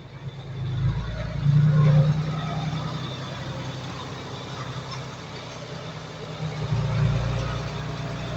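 Heavy diesel engine of earthmoving machinery running under load, growing louder about a second in and again near the end.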